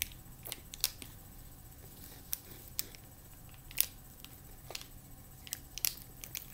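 Plastic ice-pop sleeve being squeezed and handled, giving a scatter of small sharp crinkles and clicks at irregular intervals.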